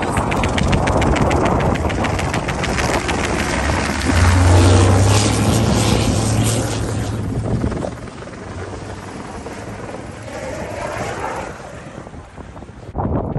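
Low-flying helicopter's rotor chopping rhythmically. About four seconds in, a Kamaz rally truck's diesel engine passes close at speed with a loud low drone, then fades. The quieter helicopter sweeps past with a falling pitch before the sound cuts off abruptly near the end.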